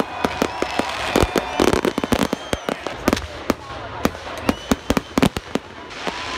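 A rapid, irregular string of sharp pops and cracks, several a second, with people's voices behind.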